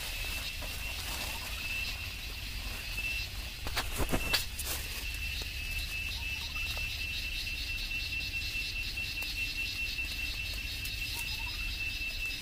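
Insects trilling steadily on one high pitch, with a faster pulsing above it. A few short knocks and rustles about four seconds in come from the plastic-mesh trap being handled.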